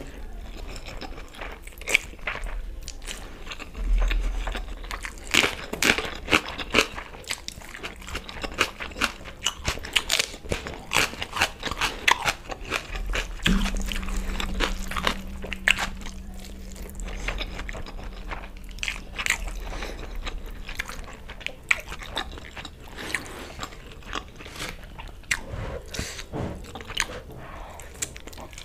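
Close-miked eating of chicken curry and rice by hand: wet chewing, lip smacks and quick mouth clicks, with some crunchier bites.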